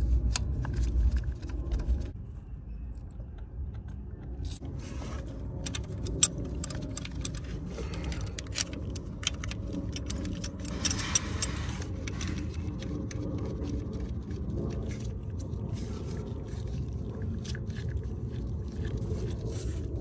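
Hand tools clinking and scraping on metal engine parts as the fuel lines and rail fittings are tightened down: many sharp, irregular clinks over steady low background noise, with a brief rasping noise about eleven seconds in.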